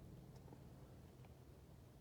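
Near silence: room tone with a steady low hum and a couple of faint ticks.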